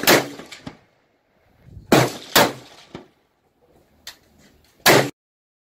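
Gunshots on an outdoor shooting range: four loud, sharp reports, two of them close together about two seconds in, and a fainter one shortly after four seconds.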